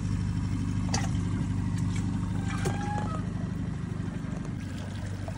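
Boat motor running steadily with a low hum; a light knock about a second in.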